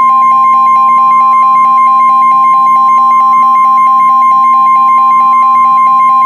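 Emergency alert attention tone: a loud, steady high beep with a rapid pulsing beep layered beneath it, sounded to announce the tornado warning that follows.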